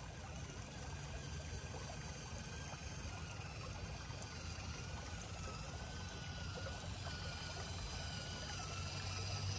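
Faint running water trickling, over a low steady hum.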